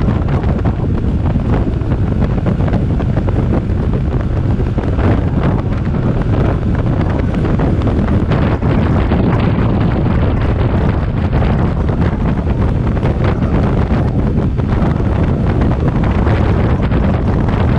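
Loud, steady wind buffeting the microphone: a dense low rumble without a break, with no distinct engine note standing out.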